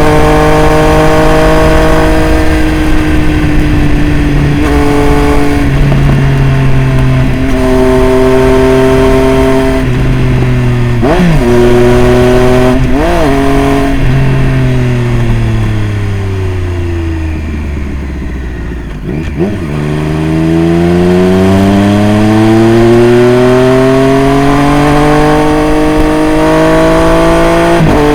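Triumph Street Triple RS's 765 cc inline three-cylinder engine through a Jeskap full exhaust system. It runs at a fairly steady pitch with small steps, gives two quick throttle blips a little before halfway, then the revs fall away as the bike slows. Over the last third the revs climb steadily as it pulls away again.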